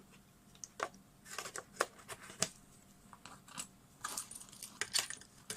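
Irregular sharp clicks and short scrapes of a discrete graphics card being handled and fitted into a desktop PC's motherboard slot.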